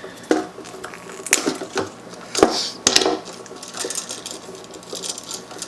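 Electrical tape being pulled off its roll and wrapped around a wall switch's screw terminals: irregular crackles and clicks, the loudest a little over two seconds in.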